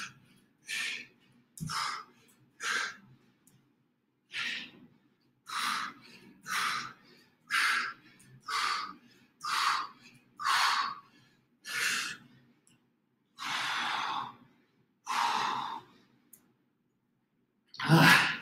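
A person breathing hard from exertion, in sharp exhalations about once a second, slowing into two longer exhales near the end.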